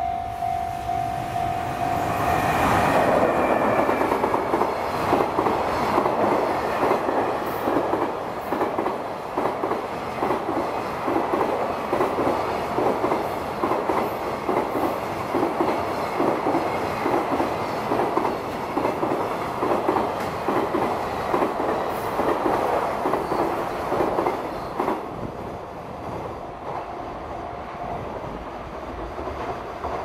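Level-crossing warning bell ringing in steady pulses for the first couple of seconds. Then a long JR Freight container train rolls past, its wagon wheels clattering rhythmically over the rail joints and the crossing. The clatter fades near the end as the last wagon goes by.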